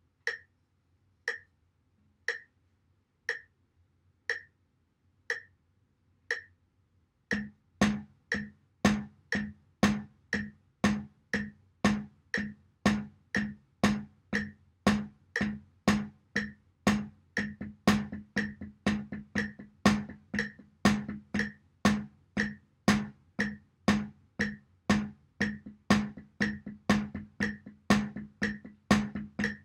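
Metronome clicking once a second, then about seven seconds in drumsticks start playing steady sixteenth-note control strokes on a snare drum with a pad laid over its head, each stroke a short dull thud, over the continuing clicks.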